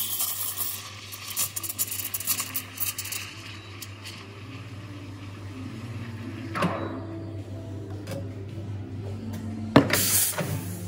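Espresso machine steam wand steaming milk in a stainless steel pitcher: a loud hiss for the first few seconds as the milk is stretched, settling into a quieter steady hiss over a low hum as it rolls. A brief loud burst of hiss comes near the end.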